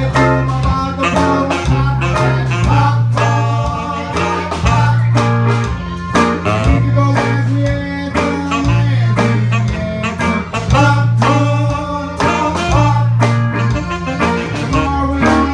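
Live band music: electric guitar and accordion over a bass line and a steady beat.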